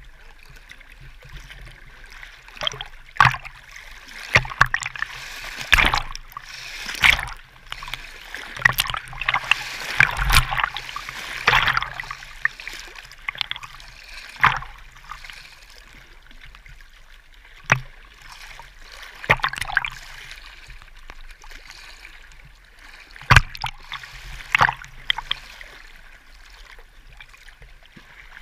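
Small choppy waves lapping and splashing against a camera held at the waterline, with irregular sharp slaps of water over a steady sloshing, busiest in the first half.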